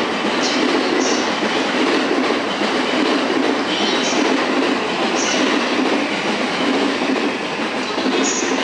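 JR East E657 series limited express train moving along the platform, its wheels rumbling steadily on the rails, with several brief high squeals.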